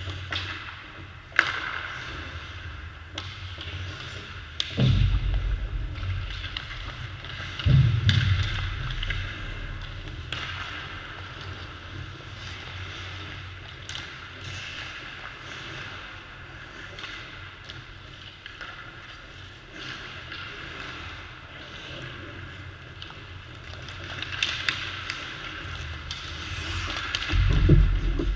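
Ice hockey practice: skate blades scraping the ice and sharp clicks of sticks striking pucks, with heavy low thuds about five and eight seconds in and again near the end.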